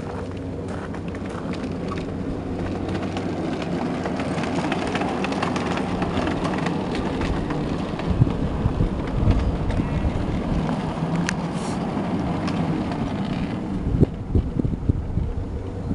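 Ride-on miniature railway locomotive, a model diesel shunter, running slowly along the track: a steady low drive hum under the rumble of wheels on rails. Clicks and knocks from the wheels and rolling stock come thicker from about eight seconds in, with a cluster of sharper knocks near the end.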